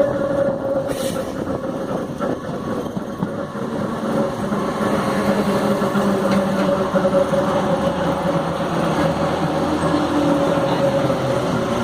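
FNV/Cobrasma Série 4400 electric train running and growling loudly, a steady whine over a rumble, with lower tones coming up about halfway through.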